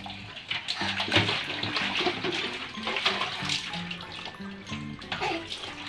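Water splashing and pouring as it is scooped and tipped from plastic pots into metal washing basins, in irregular splashes, over background music.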